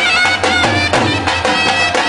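Several two-headed barrel drums (dhol) played together in a quick, steady folk beat, struck with sticks and hands. A high wavering melody line sounds over the drumming.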